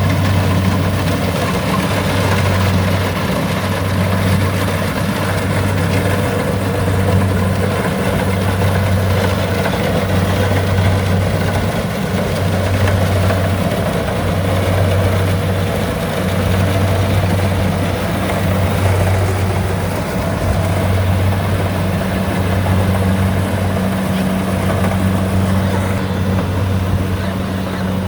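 Combine harvester engine running steadily, a loud low drone that swells and fades evenly about every two seconds.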